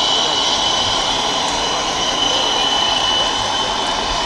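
Radio-controlled scale trucks driving: a steady mechanical whine and hum with a high, unchanging tone.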